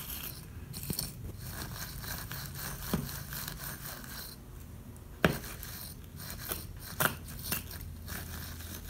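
Soldering iron tip being jabbed and scraped through a coiled metal-wire tip cleaner to clean it: a dry scratchy rustling with a few sharper clicks, about three seconds, five seconds and seven seconds in.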